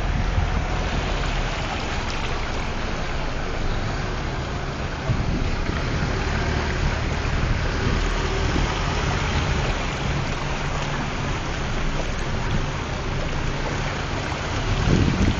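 An engine running steadily under a constant rush of water and wind noise.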